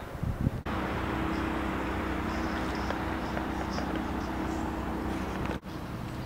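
A motorboat's engine running with a steady low hum as the boat crosses the lake, with faint high chirps above it. The hum starts just under a second in and cuts off abruptly near the end.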